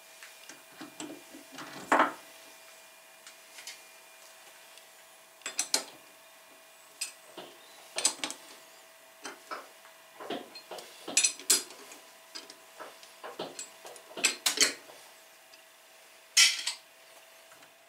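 Irregular metal clinks, knocks and scrapes of steel lathe chucks being handled, and of a 5C collet chuck being fitted to the lathe spindle and tightened with a bar. The loudest knocks come about two seconds in and near the end.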